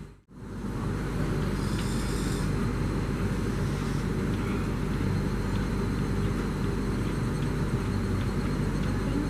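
A steady low mechanical drone, like a motor or engine running, with a brief high hiss about two seconds in.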